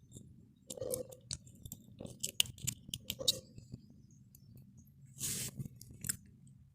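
Clicks, crunches and scrapes of small plastic and metal parts of a burnt miniature circuit breaker being handled, with a longer scrape about five seconds in and a sharp click just after.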